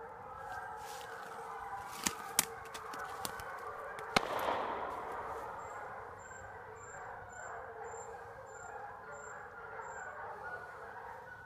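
A pack of hounds baying together without a break, their voices overlapping. A few sharp cracks sound about two seconds in, and a louder crack about four seconds in rings on for a second or so.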